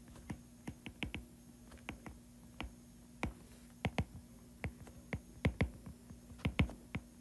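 Stylus tip tapping and clicking on a tablet screen during handwriting: faint, irregular clicks, several a second in small clusters with short gaps.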